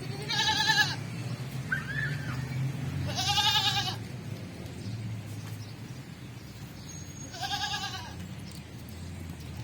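Goat bleating: three loud wavering calls, about a second in, about three seconds in and near the end, with a fainter short call in between, over a steady low hum.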